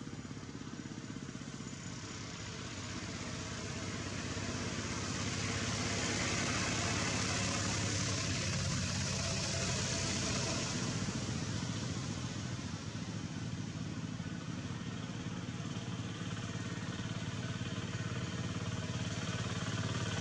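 A motor engine running steadily with a hiss over it, growing louder between about three and seven seconds in and then holding.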